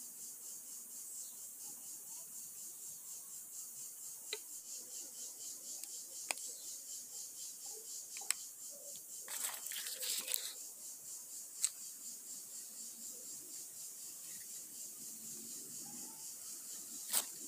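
Steady high-pitched chorus of forest insects, pulsing a few times a second. Several sharp clicks are scattered through it, with a brief rustle about ten seconds in.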